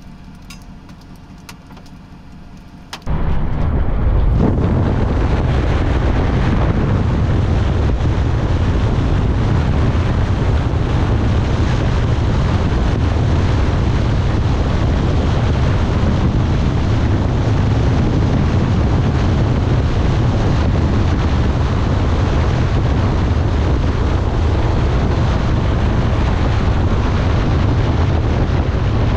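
Strong wind buffeting the microphone: a loud, steady rushing noise with a heavy low rumble that cuts in suddenly about three seconds in, after a quieter stretch with a few faint clicks.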